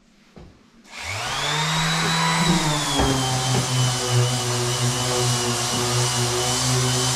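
An electric motor switches on about a second in, spins up in pitch, then runs steadily with a high whine.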